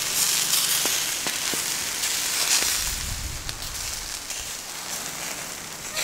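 Skewered tomatoes and vegetables sizzling over hot charcoal: a steady hiss with a few sharp crackles, easing off gradually after the first few seconds.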